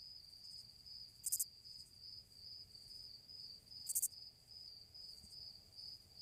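Crickets chirping in a steady, pulsing trill, with two short, higher-pitched hissing bursts about a second in and again about four seconds in.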